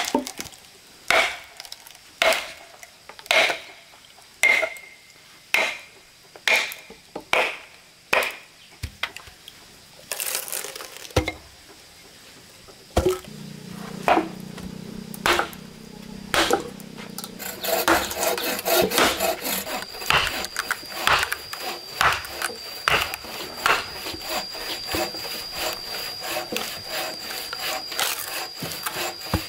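Hammer driving a metal splitting wedge into a standing log, about ten ringing metal-on-metal blows, roughly one a second. Then, from about two-thirds of the way in, quick rasping strokes on wood, several a second, with a thin steady high-pitched tone.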